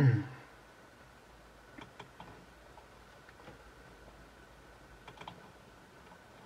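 Faint computer mouse and keyboard clicks, a few short clicks in quick clusters, as folders are opened on the PC. A faint steady whine runs underneath.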